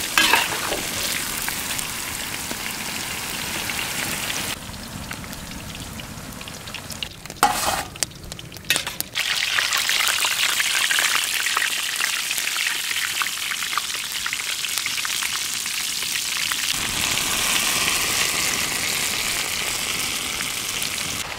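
Crumb-coated mushrooms deep-frying in hot oil in a large iron kadai: a steady, dense crackling sizzle. It drops quieter for a few seconds in the middle, with a few sharp knocks, then comes back full as a fresh batch fries hard.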